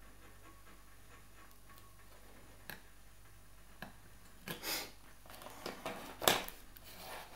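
Handling of a 9-volt battery and its plug-in power lead at an Arduino board: a few light clicks, then scraping and rustling with a sharp plastic click about six seconds in.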